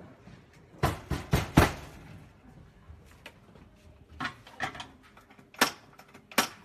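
A series of sharp knocks and clacks of hard objects: four in quick succession about a second in, then a few more spread over the later seconds.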